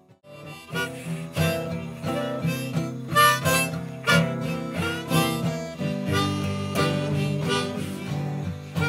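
Acoustic guitar strummed with a harmonica played in a neck rack over it, one player performing a tune; the music starts a moment in after a brief gap.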